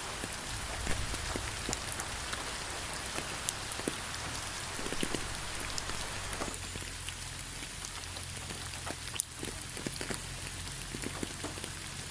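Steady rain falling on a surface, with many separate drops ticking through the hiss. About halfway through, the deeper part of the hiss thins out.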